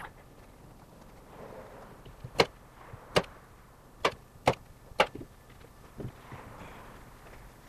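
Staple gun firing five staples through canvas into a wooden stretcher bar: sharp snaps over about three seconds, with soft rustling of the canvas fabric before and after.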